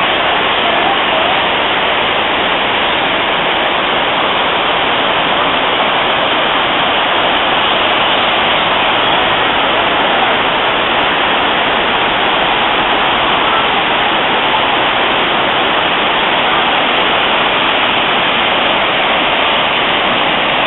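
Rushing water of Dunn's River Falls cascading down its rock steps: a loud, steady hiss that does not change.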